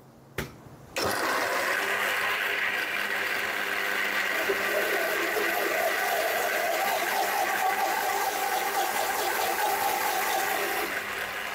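National Multi Chopper electric blender running at a steady speed, blending milk, banana, soaked oats and almonds with ice. A short click comes just before it starts, about a second in, and the sound eases slightly near the end.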